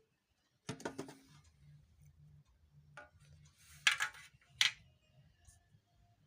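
Sharp clicks and knocks of small parts and tools being handled during a loudspeaker repair: a short burst about a second in and the loudest pair around four seconds in, over a faint low hum.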